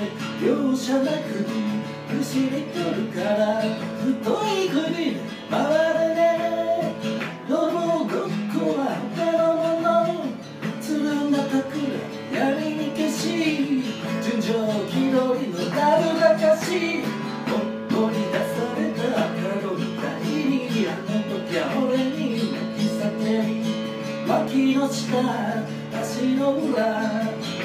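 Acoustic guitar strummed steadily as accompaniment, with a voice carrying a melody over it.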